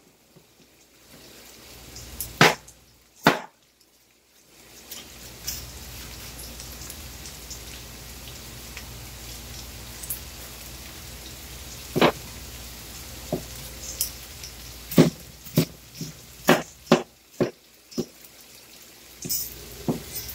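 Diced onion and garlic sizzling steadily in oil in a frying pan, with a cleaver knocking on a wooden cutting board as it chops green bell pepper. The chops come singly early on, then several in quick succession in the second half.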